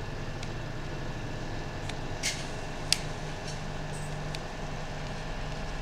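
A few light clicks and taps of hands working on a disassembled Nokia 5 phone's frame, the clearest about two and three seconds in, over a steady low background hum.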